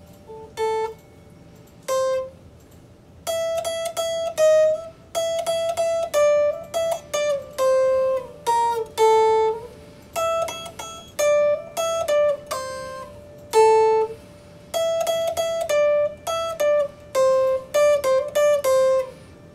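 RockJam Strat-style solid-body electric guitar played with a clean tone: single picked notes in a melodic line, with a few small string bends. The notes are sparse for the first few seconds, then come in quicker phrases with short gaps between them.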